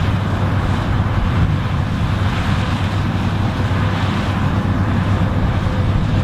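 Harvest machinery running steadily: an engine drone with a strong low hum under a constant rushing noise, unchanged throughout.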